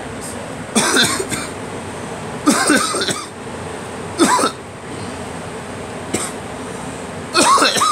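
A person coughing in a series of hard, rasping coughs, four loud ones a second or two apart and a smaller one between the last two. The cougher blames the fits on pollen.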